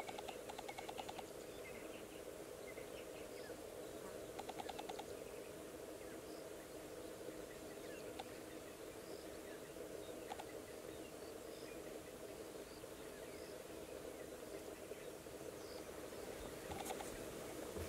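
Steady chorus of insects in the bush, an even drone, broken twice by short rapid trills and by scattered bird chirps. A couple of soft knocks near the end.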